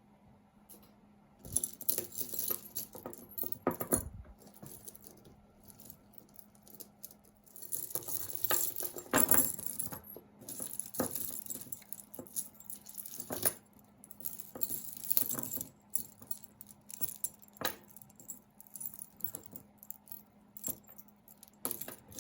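Metal costume jewelry, chains and beads, jangling and clinking as it is handled and sorted, in irregular bursts starting about a second and a half in.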